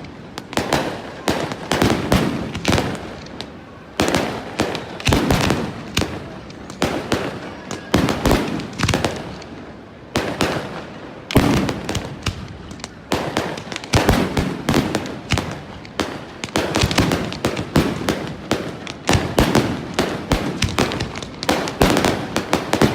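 Fireworks display: a rapid, continuous barrage of aerial shells bursting with sharp bangs and crackling, each burst trailing off in echo, in dense volleys one after another.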